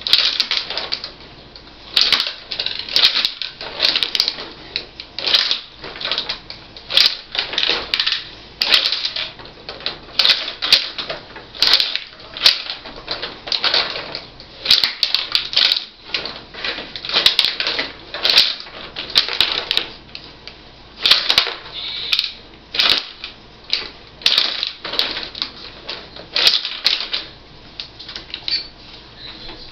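Rod hockey being played: the rods sliding and turning and the players' sticks striking the puck, which clacks off the boards and the goalies in quick, irregular clicks and knocks.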